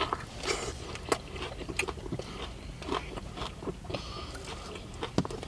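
Biting and chewing into a Burger King fried chicken sandwich close to the microphone: irregular crunches and crackles from the crispy chicken.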